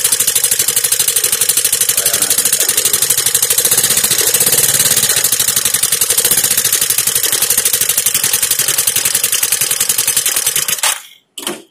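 Suzuki Access 125 scooter's single-cylinder four-stroke engine idling steadily with its top cover open, run after an oil filter change to check that oil now reaches the rockers. It cuts off suddenly about eleven seconds in, followed by one short burst.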